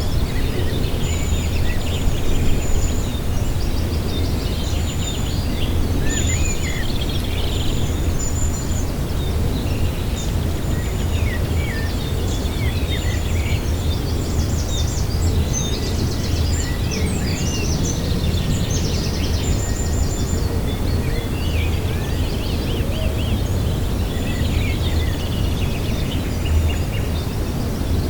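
Several wild birds singing and calling over one another, chirps and trills with a short high note repeated again and again, over a steady low rumble.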